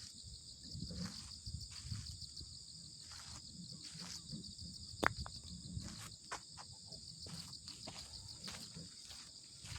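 Faint insects trilling steadily in a high pulsing band, with low rumbles and scattered small knocks, a sharper click about five seconds in.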